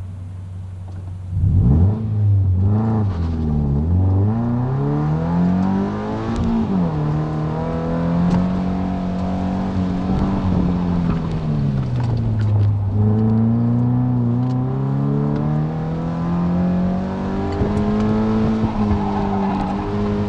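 Scion FR-S's 2.0-litre flat-four heard from inside the cabin: idling, then launching hard about a second and a half in and revving up and down through an autocross run. The pitch climbs under throttle and drops sharply on lifts and gear changes, several times over.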